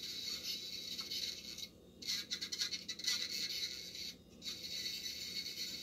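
Hiss and static from a dial-up modem's speaker on the open phone line after dialing, dropping out briefly twice.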